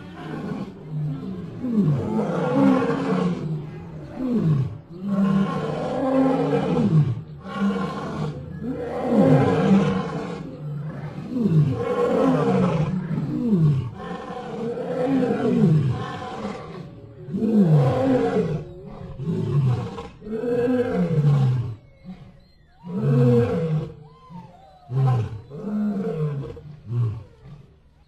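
A lion roaring: a long series of repeated roars about every one to two seconds, each falling in pitch, becoming shorter and quieter near the end.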